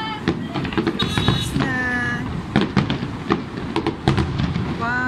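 Aerial fireworks shells bursting: a rapid, uneven run of bangs and crackles from several shells going off together.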